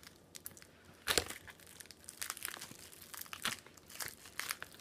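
A silver mailing envelope being handled, crinkling and crackling in short bursts, the loudest crackle about a second in.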